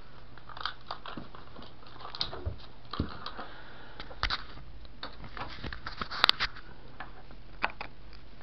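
Handling noise close to the microphone: irregular clicks, taps and rustles as hands move things on a workbench and shift the camera, with the sharpest cluster of clicks about six seconds in. A steady low hum runs underneath.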